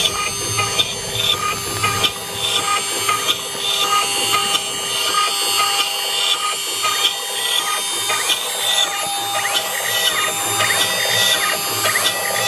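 High-speed CNC router spindle running with a small end mill cutting a pocket into a box-mod enclosure, a steady whine with a regular scraping cut. In the second half short rising-and-falling whines repeat every second or so as the machine's axes move back and forth.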